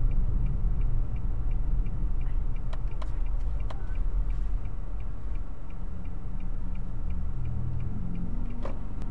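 A car's turn-signal indicator ticking about three times a second over the low rumble of the engine and road heard inside the cabin. The ticking stops about two-thirds of the way through as the turn is completed.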